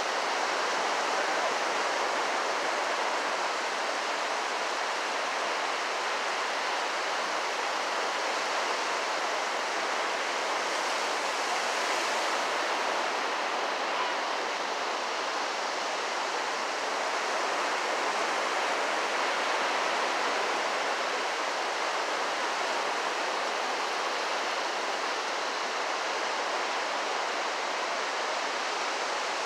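Ocean surf washing in on a sand beach: a steady, even hiss with no single wave break standing out.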